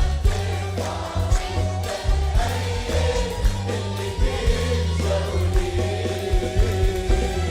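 Christian worship song: a choir singing over sustained bass notes, with a drum hit roughly every second.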